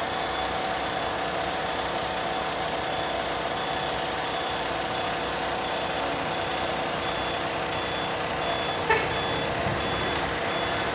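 Truck reversing alarm beeping evenly, a high beep a little more than once a second, over the steady sound of truck engines running. One short knock about nine seconds in.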